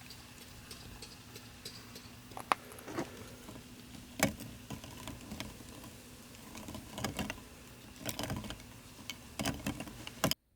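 Scattered light clicks and knocks, a few at a time, over a faint steady hum, cutting off suddenly near the end.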